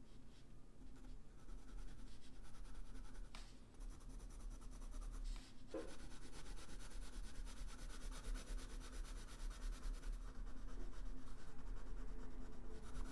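Blue coloured pencil shading on sketchbook paper: rapid back-and-forth strokes making a steady, scratchy rubbing, with a brief pause about four seconds in.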